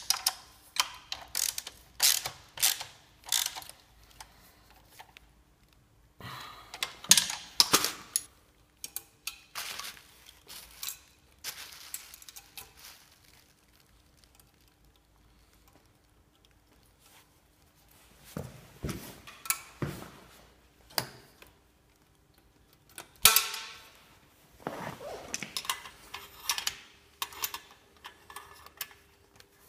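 Hand tools on a motorcycle's exhaust fittings: a ratchet wrench clicking in bursts as bolts and the 12 mm header nuts are worked, with metal clinks, scrapes and a sharp knock, and a few quiet seconds in the middle.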